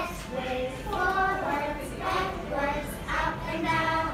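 Children singing, with pitched lines held for about half a second at a time.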